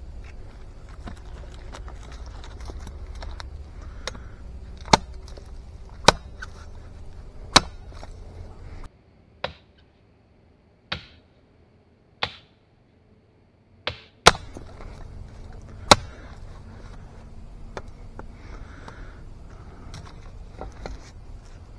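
A blade chopping into dead wood: a series of sharp knocks about one to two seconds apart, with a few quieter knocks in the middle.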